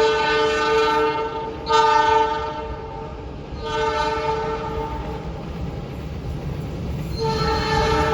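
Diesel locomotive air horn sounding a chord of several tones in repeated blasts: one already sounding ends about a second and a half in, two more follow, and another starts near the end. This is the long-horn signal (Semboyan 35) of a CC 206 locomotive hauling the Argo Wilis express. Under the horn, the rumble of the passing train grows louder.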